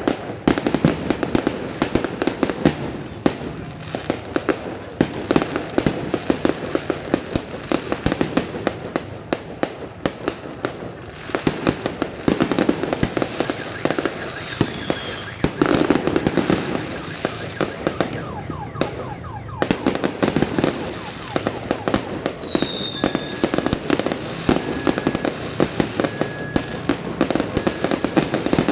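Fireworks display going off continuously: a dense, rapid string of bangs and crackling pops, with an occasional whistling glide.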